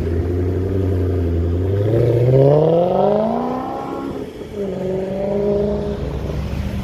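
Maserati GranTurismo V8 accelerating away. A steady low exhaust note gives way to revs climbing for about two seconds, then the pitch drops at an upshift about four seconds in and holds steady in the next gear.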